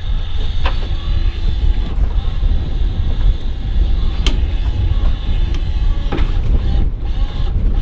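Strong storm wind blowing over a sailboat at anchor and buffeting the microphone, a heavy low rumble with a steady rushing noise above it. A single sharp click about four seconds in.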